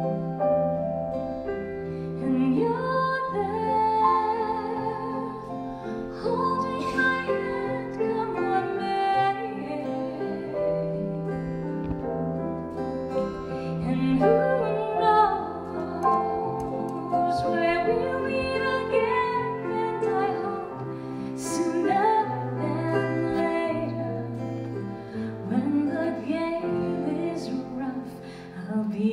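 Live acoustic ballad: a woman singing over steady acoustic guitar and piano, with a cajón and a violin.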